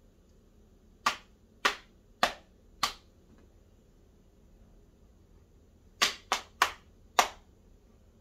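Hand claps beating out short echo rhythm patterns: four steady claps, then after a pause four more, three quick and one slightly later.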